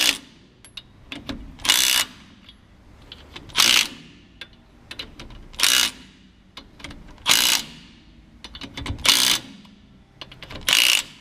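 Milwaukee M18 1/2-inch cordless impact wrench hammering wheel nuts onto a truck's outer dual rear wheels: six short bursts about two seconds apart, with light clicks of the socket between them as it moves from nut to nut.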